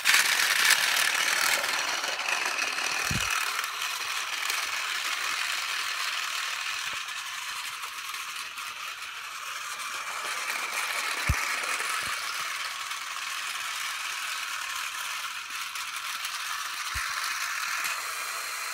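Battery-powered Tomy Plarail toy trains running on plastic track: a steady mechanical rattle of small motors and gears, with a few light knocks along the way.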